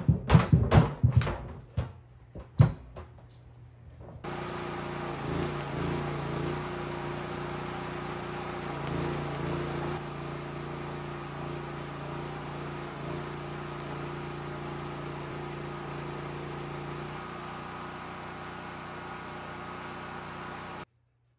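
A few loud thumps and knocks from the thin sheet-metal tank being stood on. Then a stick-welding arc from a 3/32 6011 rod at about 95 amps on 16-gauge sheet steel crackles steadily over a low hum, stopping abruptly near the end.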